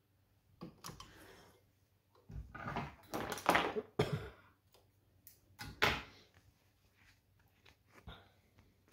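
Hand-handling noises at a sewing machine: a stitched sample of material rustling and scraping as it is pulled and turned, with scissors snipping the threads; a few short bursts, loudest around the middle, with a sharp click a little before the end. The sewing machine itself is not running.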